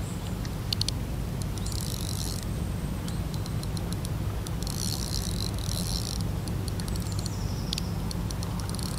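Large spinning reel working while a hooked carp is played: short spells of high buzzing with scattered sharp clicks, about two seconds in and again around five to six seconds in, over a steady low rumble.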